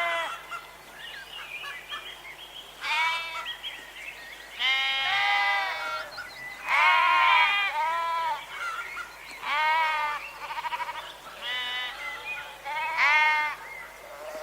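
Several sheep bleating, about eight calls at different pitches, some overlapping and one with a rapid quaver.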